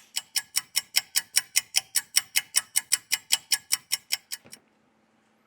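Clock ticking, likely an added sound effect: about five even, bright ticks a second for some four seconds, growing fainter near the end.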